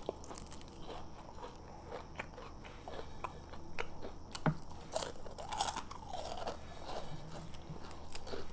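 A person chewing crunchy food with many small crisp crunches and crackles, and a brief hum about halfway through.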